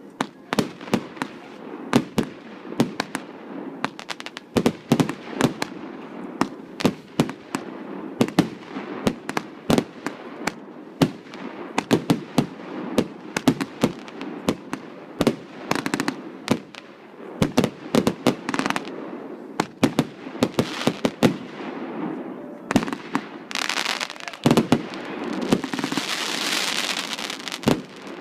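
Fireworks going off: a rapid run of bangs and shell bursts, often several a second. Near the end a dense hissing rush joins the bangs.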